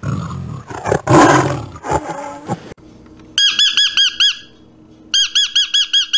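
A tiger roaring, loudest about a second in. Then come two short bouts of quick, clear, repeated bird chirps, about seven a second.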